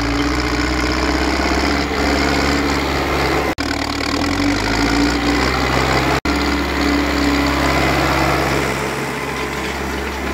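MTZ-82 tractor's four-cylinder diesel engine running steadily while pulling a disc harrow through stubble. The sound cuts out very briefly twice, about three and a half and about six seconds in.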